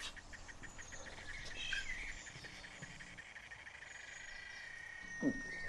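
Faint insects and birds chirping: a fast, pulsing insect trill at first, then a few bird chirps about two seconds in, with a steady high-pitched tone through the second half. A brief low sound about five seconds in is the loudest moment.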